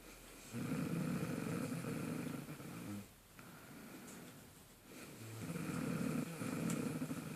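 A woman snoring in her sleep: two long snores, each about two and a half seconds, about five seconds apart.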